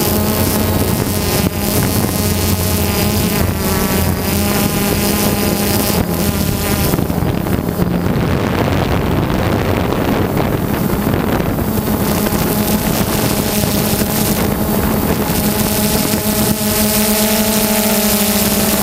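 Multirotor drone's propellers and motors whining steadily, heard from the drone's own microphone, with wind noise over it. The pitch shifts slightly near the end as the motors change speed.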